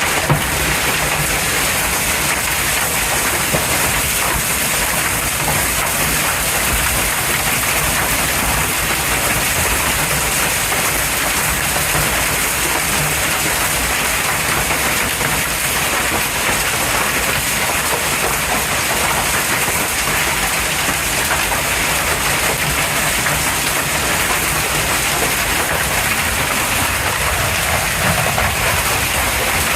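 Heavy rain mixed with hailstones pelting down, a dense steady hiss made of countless fine ticks of impacts.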